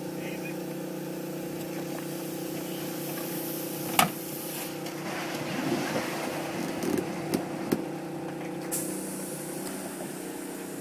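An engine running steadily at an even speed. A sharp knock about four seconds in, then a few lighter knocks.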